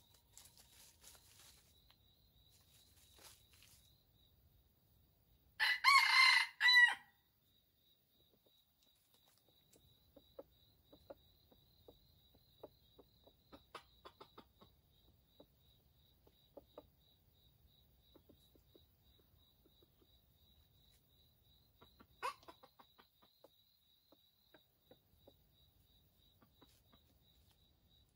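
A red junglefowl rooster crows once, a short crow broken into three parts about six seconds in, over a faint steady high insect trill. Later come scattered soft short clucks and one sharp short sound a little after twenty seconds.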